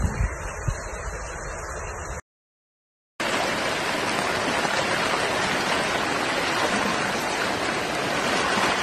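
Wind buffeting the microphone with low thumps, cut off about two seconds in; after a second of silence, the steady rushing of fast-flowing floodwater.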